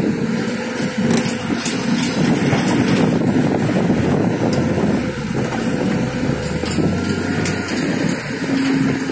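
Caterpillar hydraulic excavator's diesel engine running hard under load as its bucket pushes a log truck through mud, with scattered sharp clicks over the steady engine noise.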